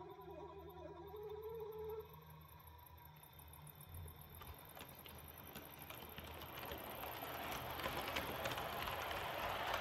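Roco model train of SBB EW IV coaches rolling along the track. Its rolling noise grows steadily louder as the coaches pass close by, with light clicking running through it.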